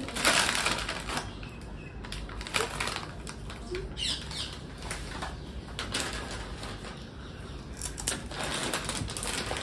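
Foil potato-chip packets rustling and crinkling as they are handled, in irregular bursts, loudest in the first second.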